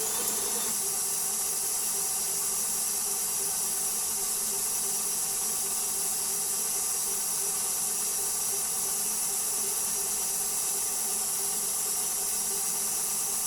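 Electric mixer running steadily at a raised speed, a constant whir, as it works flour and the yeast-milk mixture into a bread dough.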